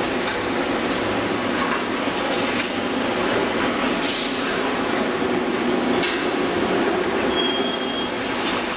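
Running noise of an automated machining cell with CNC vertical lathes, conveyors and gantry robots: a steady mechanical hum with faint rattles and clicks. A short high tone sounds near the end.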